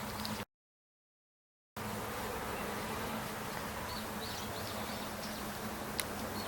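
Steady outdoor background noise with a low, even buzzing hum, broken by about a second of dead silence at an edit cut. A few faint high chirps come near the middle, and a single sharp click near the end.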